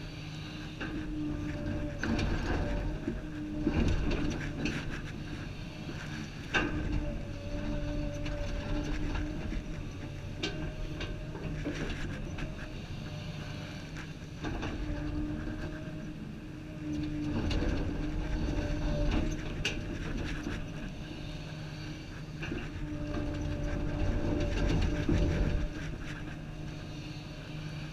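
Komatsu PC350 excavator running under working load from inside the cab: a steady diesel rumble with a hydraulic whine that swells and fades as the joysticks move the boom and bucket. There are a couple of sharp clunks a few seconds in.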